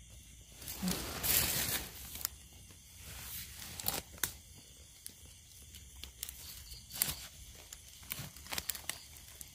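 Dry leaf litter and forest-floor debris rustling and crackling as it is handled, with a longer scraping rustle about a second in and scattered small clicks and snaps after.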